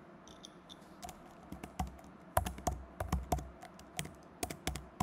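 Typing on a computer keyboard: a run of irregular key clicks, several a second.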